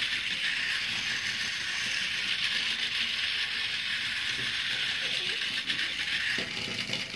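Toy train running around its oval track: a steady whirring of its small motor and gears with a fine, even rattle of the wheels on the rails.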